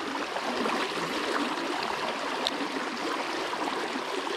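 Flowing water of a small river, a steady even rushing.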